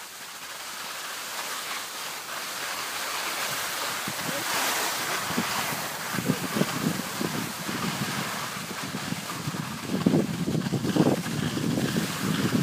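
Skis hissing over packed snow with wind rushing across the phone's microphone while skiing downhill. From about six seconds in, irregular low buffeting gusts join the hiss, strongest near the end.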